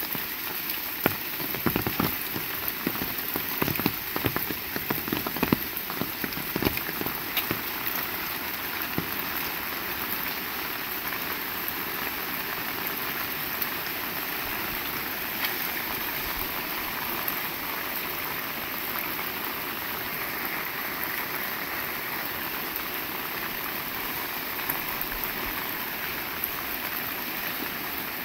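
Heavy rain falling steadily. For the first several seconds many large drops strike hard and close, then it settles into an even downpour.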